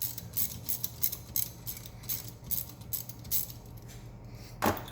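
Hand ratchet clicking with light metal clinks as the T50 Torx bolts are backed out of a Jeep TJ Rubicon rear locker carrier, with a louder metal clunk near the end.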